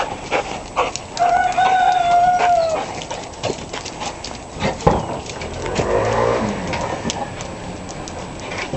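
A rooster crows once about a second in, a single held call lasting about a second and a half that drops slightly at its end. Scattered light clicks and knocks run through, and a lower, wavering sound comes about six seconds in.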